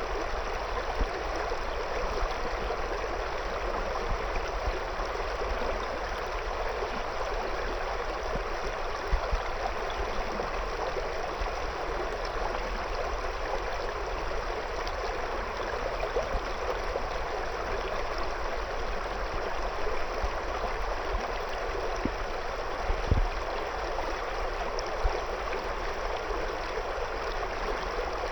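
River water flowing steadily around stones: a continuous rushing, babbling sound with no change. A few brief low bumps sit under it, the clearest about 23 seconds in.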